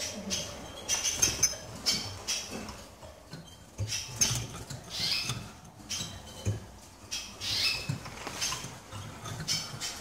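Caged finches chirping: many short, high calls one after another, with a few soft low thumps in between.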